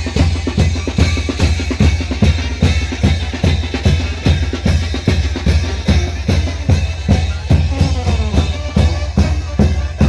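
Mexican banda (brass band) playing, with drums keeping a steady beat of about three to four strokes a second over a low, steady bass line and brass melody.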